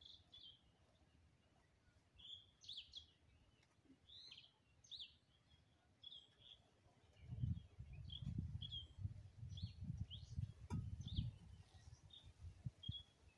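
Small birds chirping in short, repeated calls. From about halfway through, low, irregular scuffing of hands scraping loose soil joins in.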